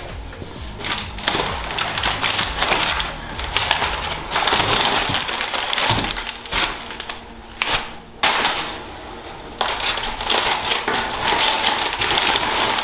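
Cardboard boxes and packaging being handled and torn open: irregular rustling, scraping and crinkling, in loud uneven bursts.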